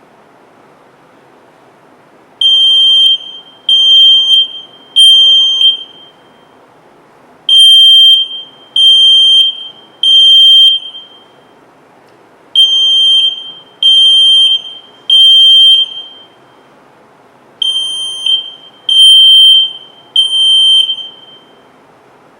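Fire alarm sounding a high, shrill piezo beep in the temporal-three pattern: three beeps, a pause, repeated four times, starting a couple of seconds in. This is the standard evacuation signal.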